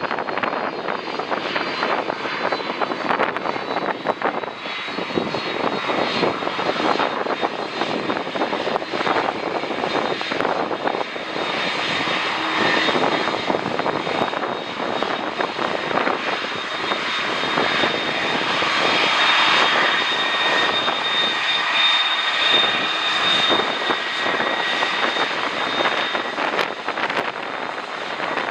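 Jet airliner's engines running with a high whine over a broad roar, growing louder in the second half as the aircraft passes on its landing approach, with gusty wind buffeting the microphone.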